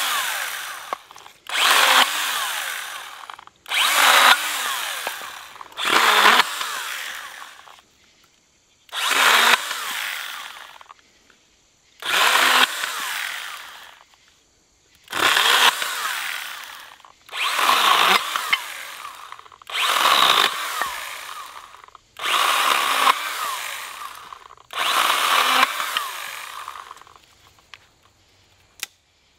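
Small battery-powered Stihl chainsaw cutting through sticks. About ten short cuts come a couple of seconds apart, each starting sharply and trailing off as the cut finishes, and the cutting stops near the end.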